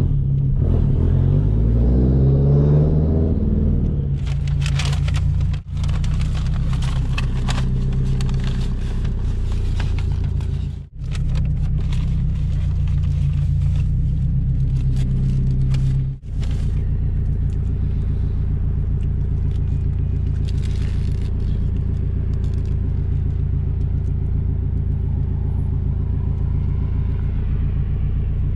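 Straight-piped 2004 Subaru WRX STI's turbocharged flat-four idling with a steady low drone, the revs rising and falling in the first few seconds. Over the idle, a paper burger wrapper and food bag crinkle and rustle for much of the middle.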